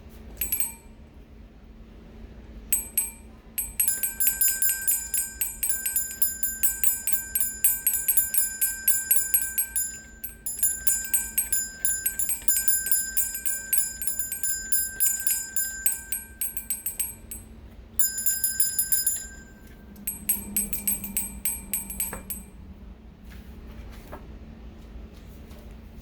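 A small, high-pitched bell struck rapidly, several strikes a second, in runs: a long peal of more than ten seconds with a brief gap, then shorter runs that stop a few seconds before the end.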